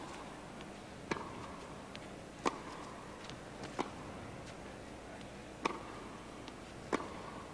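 Tennis ball struck by rackets in a rally, starting with a serve: five sharp pops spaced about one and a half seconds apart.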